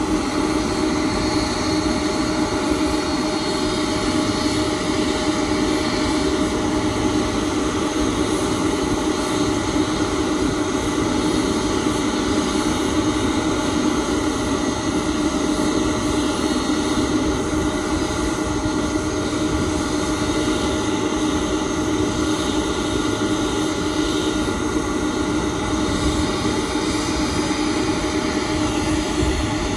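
Boeing 747-400 Dreamlifter's four turbofan jet engines running at taxi power as the aircraft rolls slowly past, a steady drone with a strong low hum and a higher whine.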